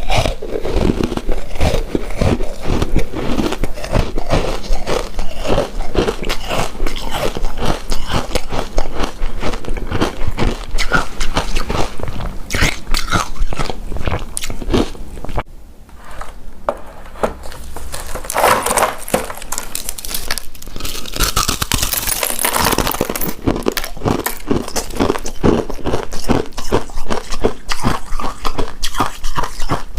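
Close-miked eating sounds: biting into and chewing a chewy rice cake coated in shredded coconut, a dense run of small sticky, crackly clicks that drops off briefly about halfway through.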